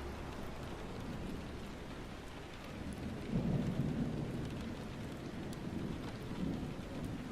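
Steady rain with a low rumble of thunder that swells a little after three seconds in.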